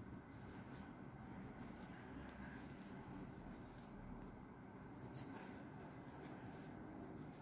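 Faint rustling and light scratching of yarn being worked with a crochet hook while a puff stitch is built up.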